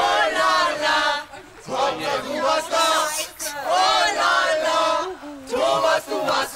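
A group of people shouting and chanting loudly together, in long calls with a couple of short breaks.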